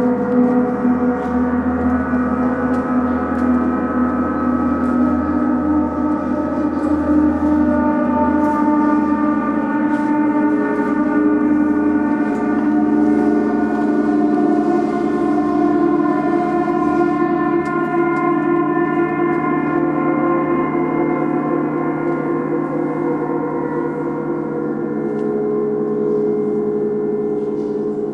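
Large hanging gongs played with mallets, ringing together in a dense, sustained wash of overlapping tones that shift slowly as the player moves from one gong to another.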